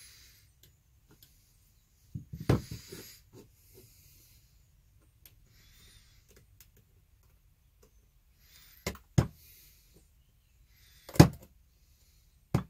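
Scattered knocks and clunks as a Milwaukee M12 FUEL 3/8-inch cordless ratchet is handled against a wooden block during disassembly. There is a cluster of knocks about two seconds in, two sharp knocks about nine seconds in, and a louder single knock about a second before the end.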